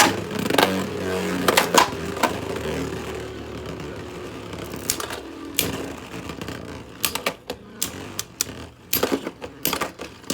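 Two spinning Beyblade tops, a 3D-printed Agèma Ares and Guilty Longinus, whirring in a plastic stadium, with sharp clacks as they collide. The whirr fades over the first few seconds, then a quick run of clacks in the last few seconds ends the battle with Guilty Longinus bursting apart.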